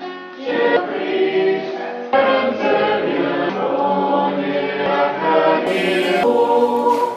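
A small choir singing a cappella in harmony, holding sustained notes under a stone vault.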